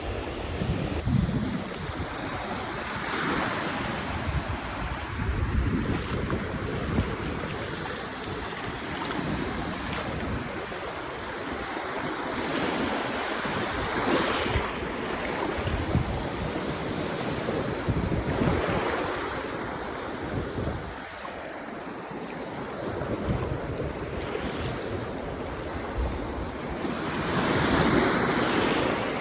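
Sea waves breaking on the shore, the surf swelling up and washing back every few seconds, the loudest near the end. Wind rumbles on the microphone throughout.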